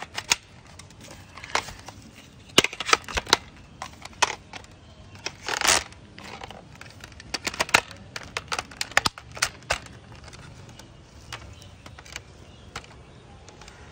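Hard plastic toy-gun parts clicking and snapping as they are fitted together, with sharp irregular clicks and a short scraping rasp about halfway through.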